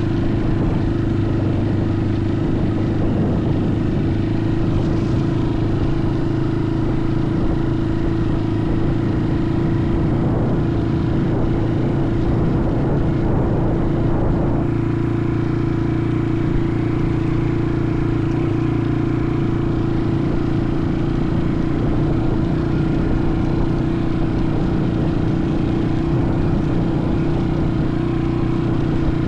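Motorcycle engine running at a steady speed, with a change in its note about halfway through.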